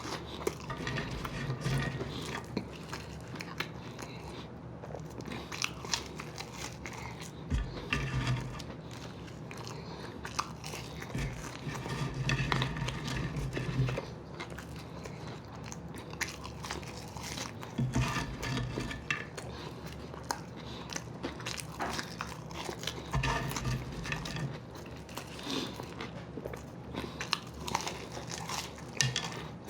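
People chewing and biting into a fast-food meal close to the microphone, with irregular crunches and wet mouth clicks throughout.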